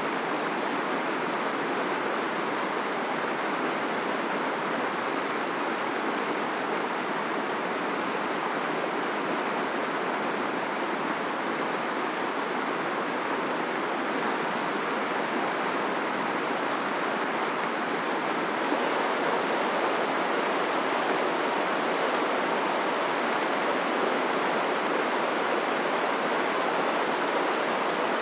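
Fast, glacier-fed mountain river rushing over rocks, a steady noise of white water. It gets a little louder about two-thirds of the way through.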